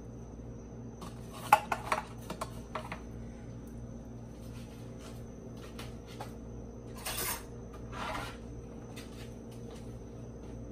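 Kitchenware clinking against a glass baking dish. A quick run of sharp clinks comes about a second and a half in, then two short scraping sounds around seven and eight seconds.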